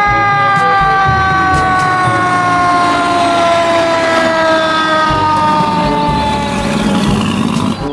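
Fire truck siren sounding one long continuous tone that falls slowly in pitch, with the truck's engine running underneath.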